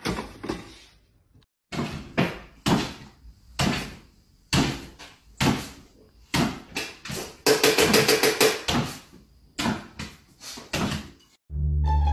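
A run of short, sharp knocks and clatters at uneven intervals, with a dense flurry of them about two-thirds of the way through.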